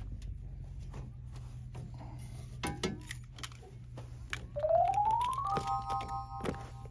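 Sharp metal clicks from the latches of a hard-shell rooftop tent being worked by hand, over a steady low hum. Past the middle, an electronic tone rises in pitch for about a second, then holds as a steady chord for about another second.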